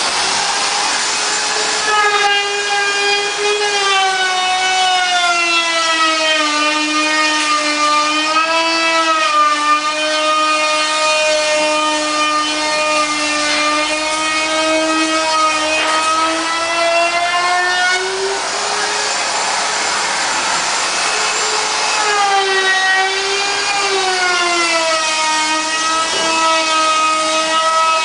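Loud droning whine with a slowly wavering pitch and strong overtones. About two-thirds of the way through it briefly gives way to a hissing rush, then the drone returns. This is the noise complained of in a hotel room.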